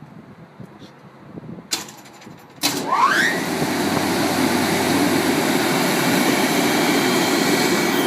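LeRoi air compressor's engine starting about two and a half seconds in, its pitch rising quickly before it settles into a steady, loud run.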